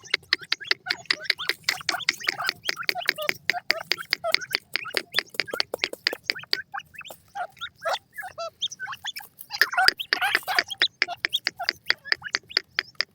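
Birds calling: a fast, steady run of sharp clicking notes, several a second, with pitched chattering calls mixed in that grow busier about two-thirds of the way in.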